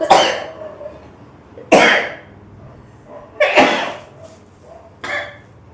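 A woman sneezing four times in a row, about one and a half seconds apart, the last sneeze softer. The sneezes are set off by tickling her nose with coconut-husk fibre.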